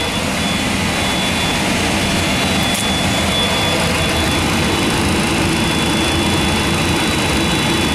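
GE CF6 turbofan being turned over by its air starter at about 20% N2, just before fuel is introduced. Heard from the cockpit as a steady rushing noise with a thin, steady high whine.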